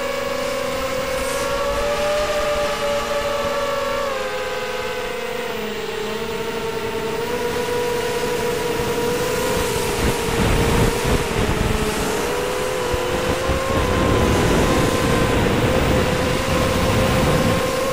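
ZMR250 quadcopter's four brushless motors whining, recorded close up from its onboard camera. Several near-matching tones slide up and down together as the throttle changes. From about halfway on, wind buffets the microphone in gusts.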